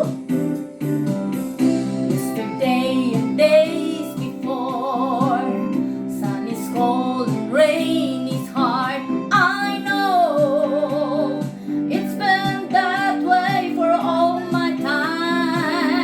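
A woman singing a song with vibrato, in sustained phrases, over a steady instrumental backing.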